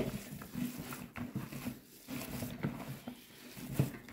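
Hands kneading and squeezing a thick, moist chicken-and-lentil shami kebab mixture in a plastic bowl, working in cornflour: soft, irregular squishing and squelching, with one louder squelch shortly before the end.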